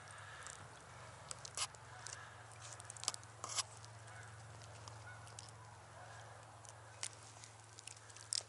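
Quiet outdoor ambience: a low steady hum under faint hiss, with a few light clicks and taps scattered irregularly, about six or seven in all.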